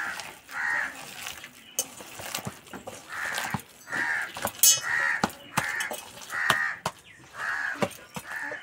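A crow cawing over and over, about ten harsh caws in short runs, over the soft squelching and clicking of hands kneading wet spinach-and-gram-flour batter in a steel bowl.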